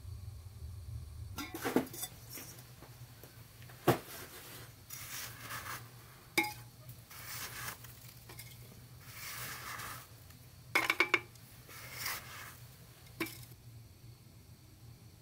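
Cooking pots and utensils being handled: sharp metallic clacks and clinks, including three in quick succession about eleven seconds in, with scraping and rustling between them over a low steady hum.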